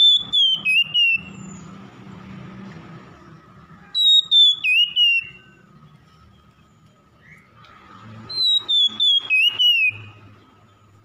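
Oriental magpie-robin singing: three loud phrases about four seconds apart, each a clear high whistle sliding downward and broken into quick stuttering notes.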